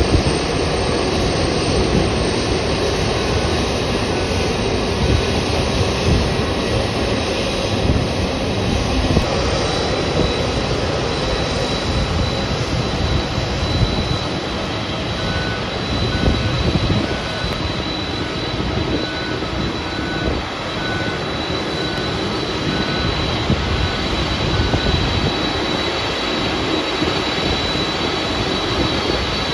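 Jet engines of a Japan Airlines Boeing 767 at taxi power: a steady rumbling hiss with a thin high whine held over it.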